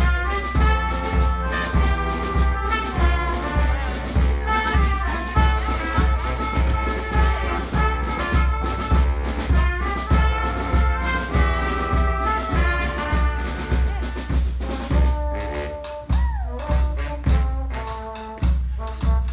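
Live brass band with drums playing: horns over a steady bass-drum beat of about two a second. The drums drop out briefly a little after the middle, a sliding note rises and falls, and the beat returns near the end.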